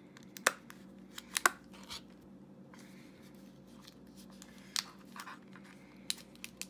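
Scattered sharp clicks and taps of small plastic toy pieces and packaging being handled on a tabletop, with a little rustling between them.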